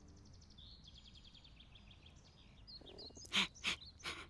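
Cartoon birdsong of light, repeated high chirps and trills. Near the end come three loud chomps as a cartoon dog eats from its food bowl.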